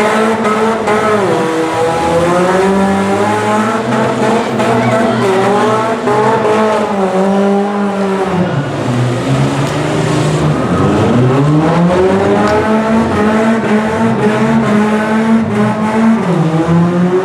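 Demolition derby car engines revving hard, several at once, their pitch rising and falling, with a deep drop and climb back about ten seconds in.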